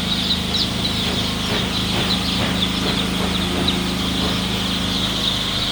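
A dense chorus of high peeping from a flock of two-day-old chicks, over a steady low mechanical hum.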